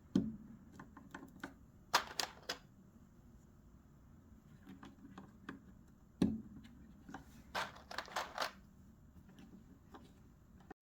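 Mechanical keyboard keys pressed in short, scattered clusters of clicks, with two heavier thumps, one right at the start and one about six seconds in.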